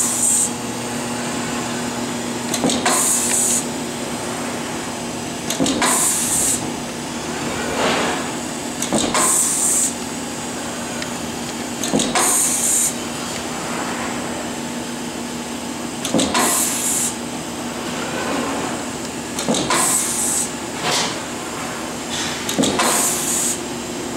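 Eastman automatic labeling machine running through a labeling cycle: a steady motor hum as the gantry head travels, broken about every three seconds by a short hiss and a sharp knock as the head presses a label down onto the fabric.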